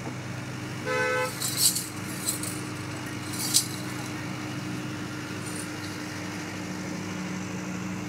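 Steady low background hum with a short horn toot about a second in, followed by a few sharp hissing noises.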